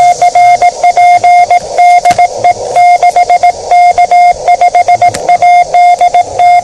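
Morse code (CW) from a small Yaesu portable HF transceiver's speaker. A single steady tone of about 700 Hz is keyed rapidly on and off in dots and dashes, with radio hiss in the gaps.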